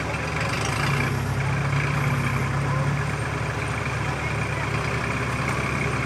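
Kubota rice combine harvester's diesel engine running steadily, with a constant mechanical hum.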